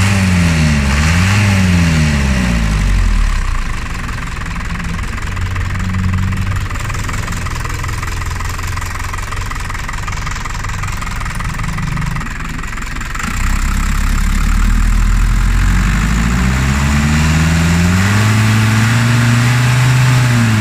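Diesel engine running after its fuel feed pump has been repaired and the fuel system bled of air. Its revs swing up and down about once a second at first as the throttle is blipped, then it runs more quietly and steadily. Past the middle it gets louder and revs up again near the end.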